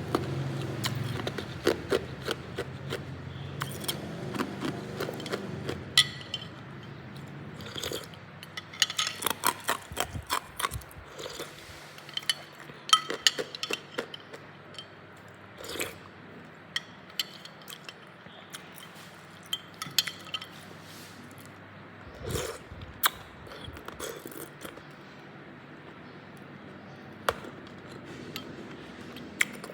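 Hard ice cubes being bitten and crunched, with many sharp, irregular cracks and clinks.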